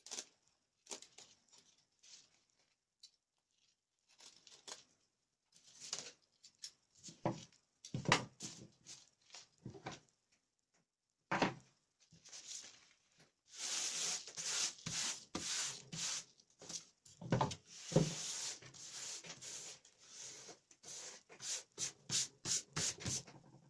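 A bicycle saddle's old cover being opened at its seam and pulled off the foam: irregular rustling, rubbing and tearing, with handling knocks. It is densest from about halfway through, and ends in a quick run of short rips.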